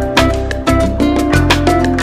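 Background music with a steady beat and sustained melodic notes, in an upbeat Latin-dance style.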